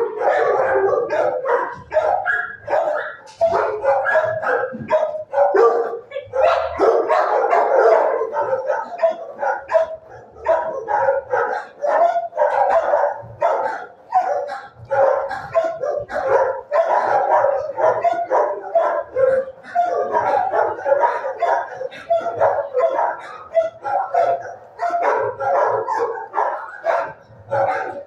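Dogs in a shelter kennel barking continuously, with short barks piling on one another without a pause.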